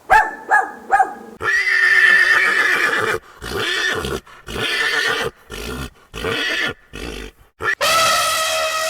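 Horse neighing: three short calls, then a long whinny, a run of shorter calls, and another long whinny near the end.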